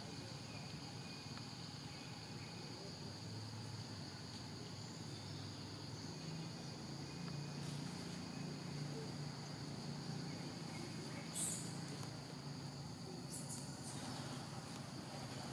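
Steady chorus of forest insects, a continuous high-pitched buzz, over a faint low rumble. A short sharp click comes about eleven seconds in, with a few fainter ones soon after.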